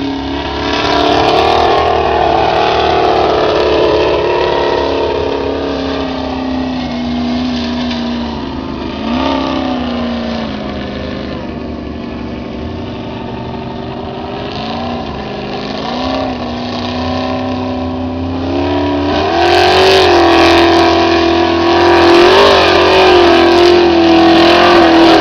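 Formula offroad buggy engine at high revs, the pitch dropping and wavering as the throttle is worked. It grows quieter toward the middle, then comes back louder at a higher, held pitch with a rushing hiss over it near the end.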